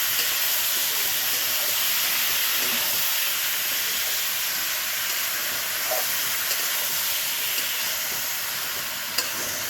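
Boiled jackfruit sizzling in hot mustard oil in a kadhai with the spice tempering just added: a steady hiss that eases slightly near the end.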